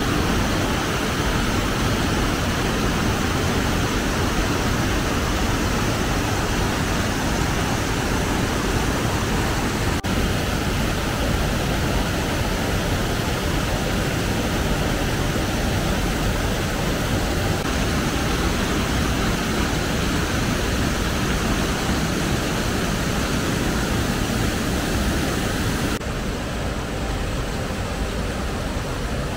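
Mountain stream rushing over rocks and small cascades, a steady loud roar of white water. Near the end it becomes slightly quieter and duller.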